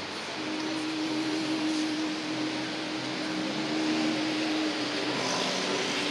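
City street traffic: a steady wash of vehicle noise with an engine's steady hum running through it.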